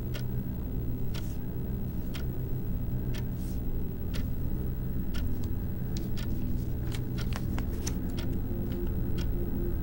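A small stack of stiff photo prints being flicked through by hand: irregular small clicks and snaps of card, more frequent in the second half, over a steady low hum.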